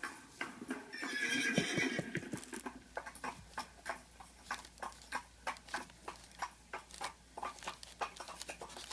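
A horse's whinny about a second in, followed by a steady clip-clop of hoofbeats at several beats a second.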